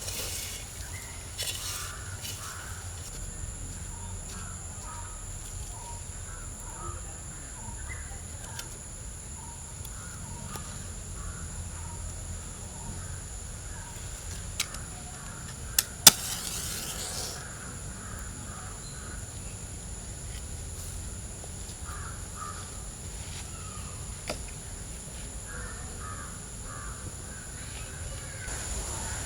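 Birds calling over and over, crow-like caws among them, over a steady high-pitched whine and a low rumble; a few sharp clicks or knocks cut in around the middle.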